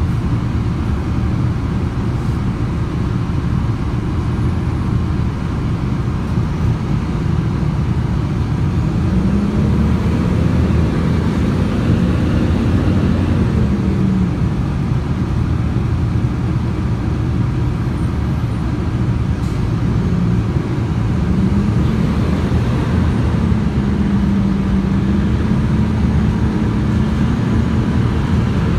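City bus engine running, heard from inside the passenger cabin as a loud, steady low rumble. The engine note rises about nine seconds in as the bus gathers speed, drops back after a few seconds, then rises again about twenty seconds in and holds.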